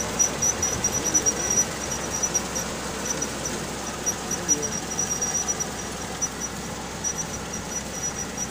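Kubota half-feed combine harvester running: a steady, dense mechanical noise with a thin high whine above it.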